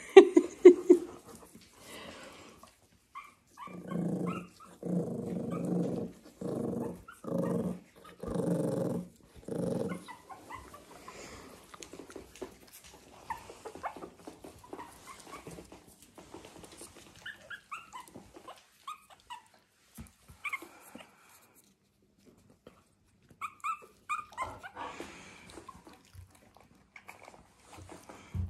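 A dog growling in a run of about six short, low growls, a few seconds in. Faint high squeaks and whimpers from young puppies are scattered through the rest.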